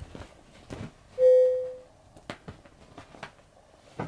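A single bell-like keyboard or chime note that rings and fades within about a second, the loudest sound here. Around it come light taps and rustles of a cat batting at a teaser-wand toy on fabric.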